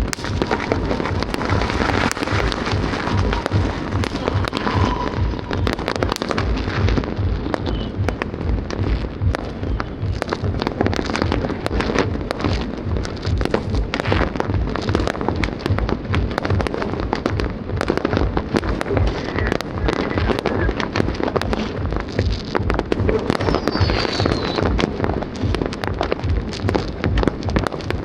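Many fireworks going off at once in a constant crackle of bangs, with music playing underneath.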